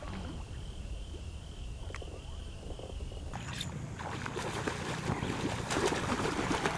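Shallow pond water sloshing and splashing with many small splashes, starting about halfway through and growing louder toward the end.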